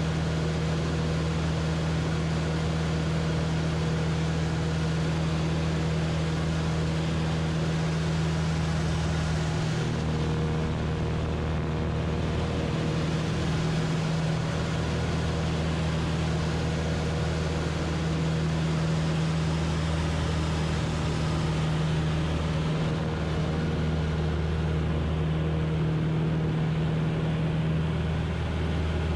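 Van's RV-8 single piston engine and propeller droning steadily in flight, a deep even hum over a steady rush of noise. The low tone wavers briefly about ten seconds in and again later as the aircraft maneuvers.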